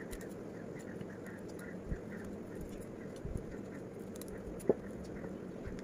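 Kitchen knife scraping and picking the skin off boiled jackfruit seeds: soft scratches and small clicks, with one sharp click a little before the end.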